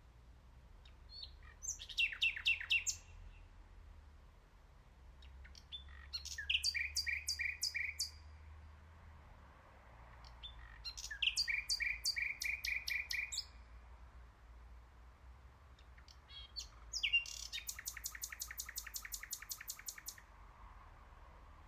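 Nightingale singing in four phrases a few seconds apart, each a run of quickly repeated notes; the last phrase is a fast rattle of many notes.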